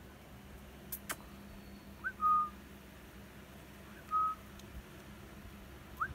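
A person whistling short notes to call puppies, about every two seconds, some opening with a quick upward slide into a brief held note. Two sharp clicks come about a second in.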